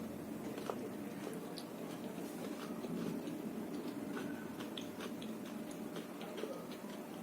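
Close-up chewing of a mini potato samosa, with many small wet mouth clicks scattered throughout.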